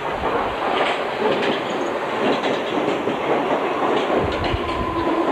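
Unrefurbished London Underground D Stock electric train running past along the platform, its wheels clattering over the rail joints. A steady whine joins in near the end.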